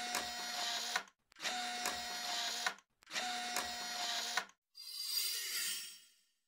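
A logo sound effect: three identical machine-like whirring bursts, each a little over a second with short gaps between them, then a fading whoosh.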